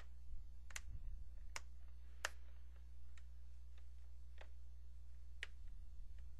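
Plastic front screen bezel of a Dell Inspiron N4010 laptop snapping into place: a series of sharp clicks, about six clear ones and a few fainter, at irregular intervals as its clips are pressed in around the edge. A low steady hum runs underneath.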